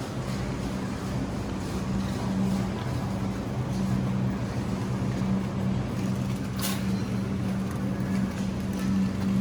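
A vehicle engine running steadily with a low, even hum, as while driving. A single sharp click comes about two-thirds of the way through.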